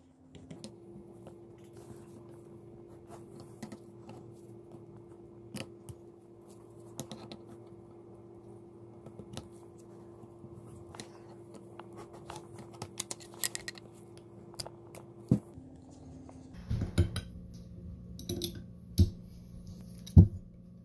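Steel pliers and a flathead screwdriver scraping, clicking and clinking against an aluminium outboard lower-unit bearing carrier as an old seal is pried out, with several louder metal clanks in the last few seconds.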